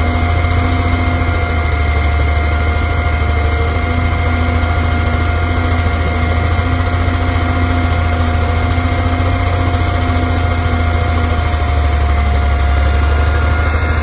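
Hyundai 480 excavator's engine running steadily: a loud, low drone with a thin, steady whine above it.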